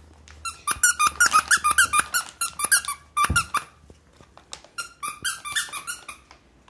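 Squeaker in a plush dog toy squeezed over and over, about four quick squeaks a second, in two runs with a short pause between them. A low thump falls about halfway through.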